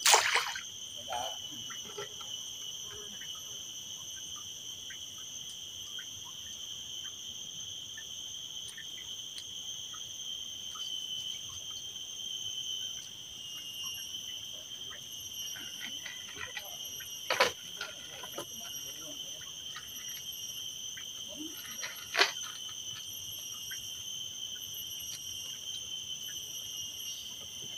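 Steady shrill chorus of insects, a continuous high drone that never breaks. A sharp knock cuts through it just after the start, and twice more in the second half.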